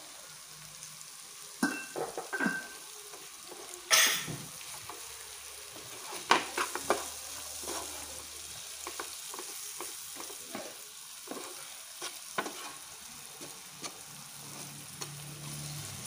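Wooden spatula stirring diced beetroot in hot oil and spices in a frying pan, with repeated scrapes against the pan over a steady sizzle. A louder scrape comes about four seconds in.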